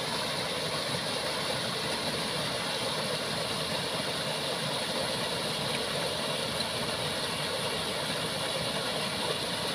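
Water pouring over a small concrete weir in a channel: a steady, unbroken rushing.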